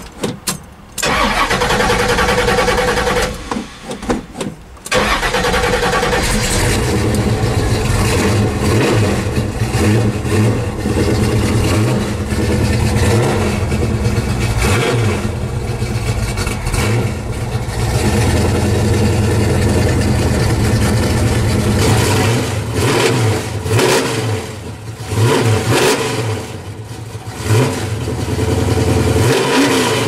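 Iron-headed Pontiac 455 V8 in a 1970 LeMans starting from cold, catching about a second in. After a brief lull around four seconds, it runs unevenly under repeated blips of the throttle. The choke is not hooked up, so it has to be revved to keep running until it will idle.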